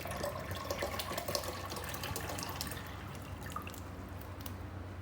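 Water running from a tap into an espresso machine's removable water tank, filling it, with splashing and dripping.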